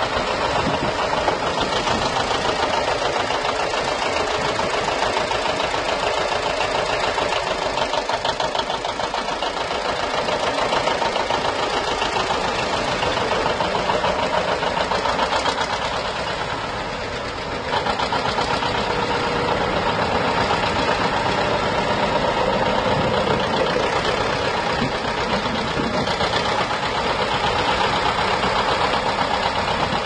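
John Deere 730 two-cylinder tractor engine running as the tractor is driven slowly, with an even, rapid beat. The sound sags briefly a little past halfway and then comes straight back up.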